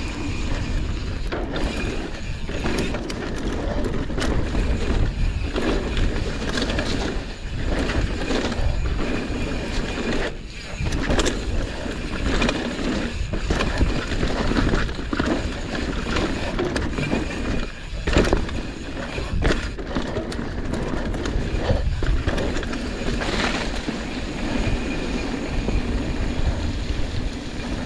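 Mountain bike riding fast down a rough dirt trail: tyres rolling over dirt and rock, the bike rattling, and sharp knocks over bumps. Wind rumbles on the handlebar-level microphone throughout.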